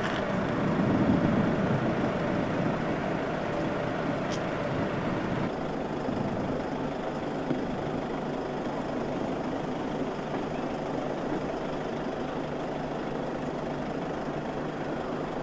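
Steady drone of the C-130 Hercules's four turboprop engines at a distance, mixed with wind noise. The sound eases slightly about five and a half seconds in.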